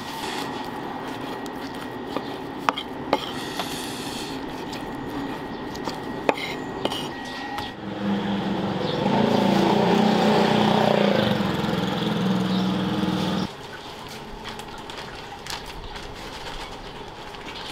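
A knife clicks and taps sharply on a plastic cutting board as raw tuna is sliced, over a steady high hum. After a cut, a louder steady low drone runs for about five seconds and stops abruptly, leaving quieter outdoor ambience.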